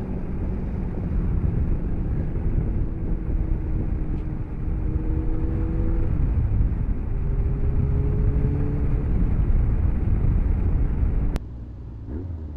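Motorcycle riding noise from the pillion seat: heavy wind rumble on the microphone over the engine's note, which steps up and down in pitch a few times. The sound drops suddenly to a quieter level near the end.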